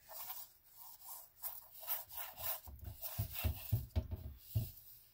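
A gloved hand smearing wet black paint across a canvas in uneven rubbing strokes, with soft low thuds. The strokes come faster from about halfway through.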